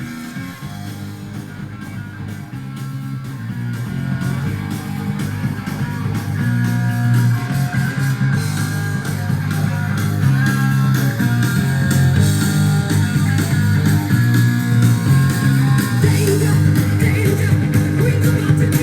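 Rock music with guitar played through a Sony LBT-A20 hi-fi system's speakers, getting louder over the first ten seconds or so and then holding steady.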